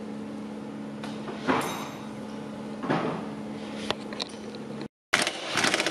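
Wrench work on the engine mount bolts: a few sharp metallic knocks about a second and a half, three and four seconds in, over a steady low hum. After a brief drop-out, a quick run of clicking and rattling follows.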